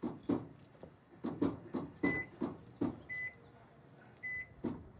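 A Black & Decker microwave oven's keypad beeping three times as its buttons are pressed, among a string of knocks and clunks from the clock being put inside and the door being handled.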